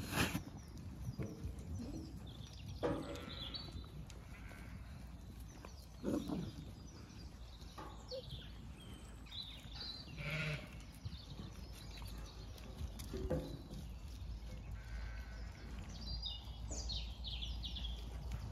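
Zwartbles ewes and two small dogs eating sheep feed at a trough, with scattered knocks and crunching from the feeding and an occasional short bleat.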